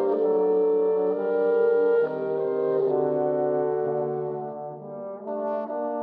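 Brass ensemble of trumpets, trombone and French horn playing slow sustained chords, moving to a new chord about once a second. The sound thins out about four seconds in, then a fuller chord enters near the end.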